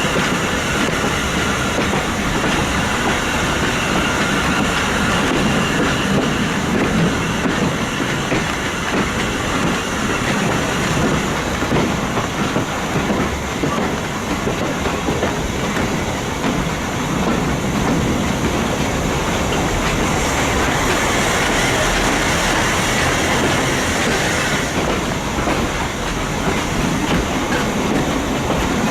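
Heritage passenger train running at low speed, its wheels rolling steadily on the rails, with a faint high squeal from the wheels over the first few seconds.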